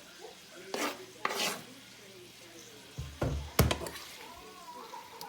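A cooking utensil stirring and scraping chicken, peppers and onions in a pot of hot oil: two scraping strokes early, then a short clatter of knocks against the pot a little past halfway, one sharp click the loudest.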